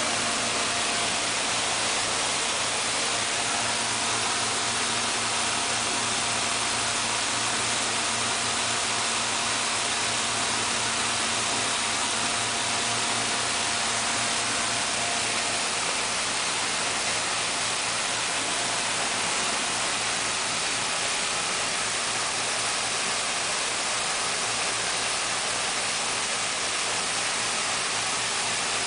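Rice milling machine running: a steady whirring rush of motor and blower noise with a low hum beneath it. A faint higher tone in it stops about halfway through.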